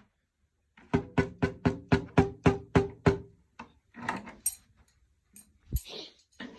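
Marching snare drum with a freshly replaced head struck about ten times in an even run, roughly four strokes a second, the head ringing at a steady pitch under the strokes: a test of the head's tuning while its tension is being adjusted. A few scattered knocks follow.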